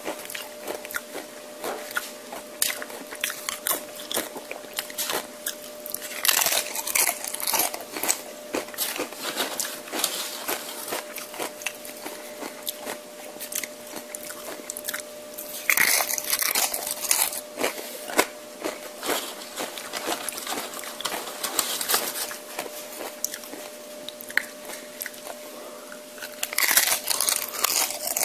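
Close-miked eating of tortilla chips: crisp biting and crunching with wet chewing between, and three louder bouts of crunching about 6, 16 and 27 seconds in. A faint steady hum runs underneath.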